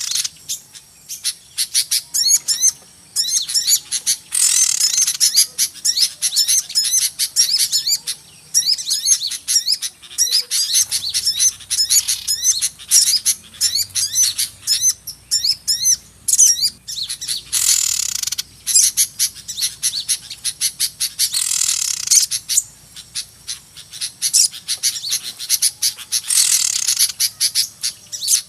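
Bird-lure recording of a noisy chorus of small songbirds: fast, dense high chirps and twitters, with louder downward-sliding trills breaking in several times. Meant to draw small birds in for trapping.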